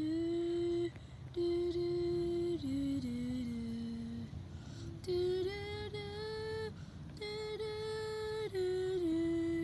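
A voice humming a slow tune in long held notes that step down and then back up in pitch, with short breaks between phrases.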